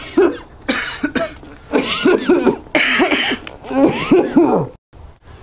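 People coughing and hacking in repeated fits, with strained voiced groans between them, acted as the sounds of plague-stricken sickness.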